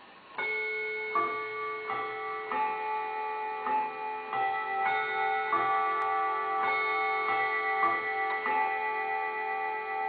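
Mechanical mantel clock with three winding arbours chiming its three-quarter-hour melody on gong rods: one struck note about every 0.6 seconds, each ringing on under the next.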